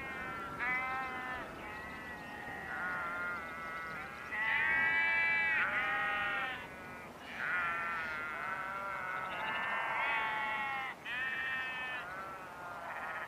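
Several sheep bleating, one call after another and often overlapping, at different pitches.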